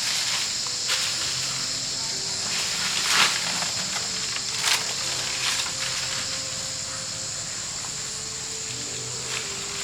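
Steady high-pitched insect chorus, like cicadas or crickets, with a few sharp clicks or knocks, the strongest about three seconds in and just under five seconds in, and faint short buzzing hums.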